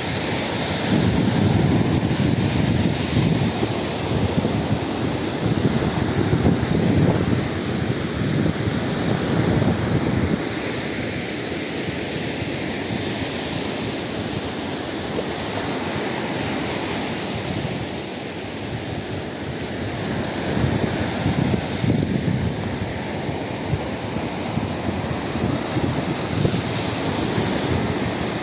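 Wind buffeting an outdoor microphone in uneven gusts, a low rumbling rush, louder for the first ten seconds or so.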